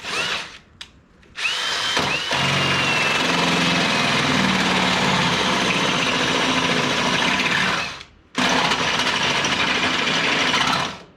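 Power drill drilling holes through the side-by-side's frame: a short squeeze of the trigger, then a long steady run whose motor whine jumps up and sags slowly as the bit bites, a brief stop, and a second run of about three seconds.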